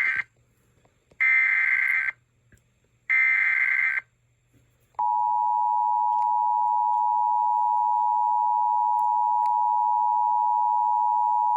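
Emergency Alert System tones: the end of one burst of SAME header data tones, then two more bursts of about a second each, a second apart. About five seconds in, the steady two-tone EAS attention signal (853 and 960 Hz) starts and holds.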